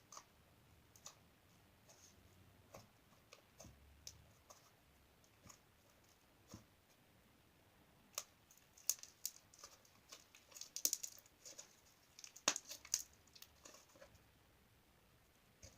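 Slime being worked by hand, giving off faint scattered clicks and small pops, coming thicker and louder for a few seconds past the middle.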